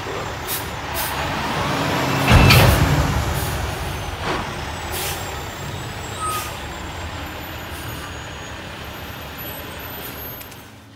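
Tri-axle dump truck tipping a load of soil, its diesel engine running steadily with the bed raised. Several short sharp hisses or knocks come through, the loudest about two and a half seconds in, and the sound eases off toward the end.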